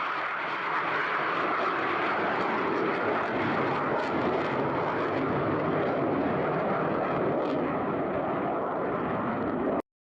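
Fixed-wing military aircraft engines, a steady loud rushing noise that cuts off abruptly near the end.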